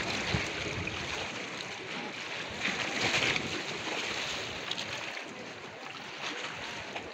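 Steady hiss of sea surf with wind on the microphone, swelling briefly about three seconds in.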